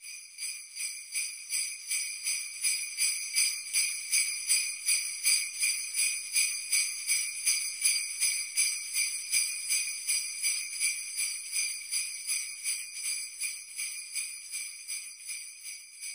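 Sleigh bells shaken in a steady, even rhythm, about three shakes a second, as an intro jingle.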